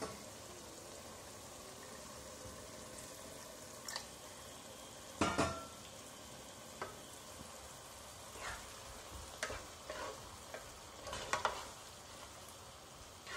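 Thick lemon pickle simmering with a low sizzle in a non-stick pot while a wooden spatula stirs it, with scattered short knocks and scrapes of the spatula against the pot, the loudest about five seconds in.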